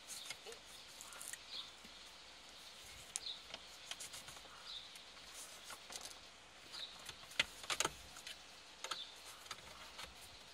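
Plastic pry tool clicking and scraping against the plastic dome light panel of a 2017 Toyota Innova as it is worked under the panel's edge to release the clips. The clicks come irregularly, loudest in a quick cluster about seven to eight seconds in.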